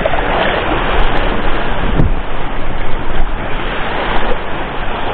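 Wind buffeting the microphone over the wash of sea waves: a loud, steady rushing noise that rises and falls.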